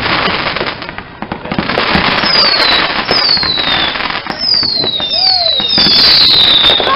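Consumer fireworks going off: dense crackling with a series of short whistles, each falling in pitch, coming one after another in the second half.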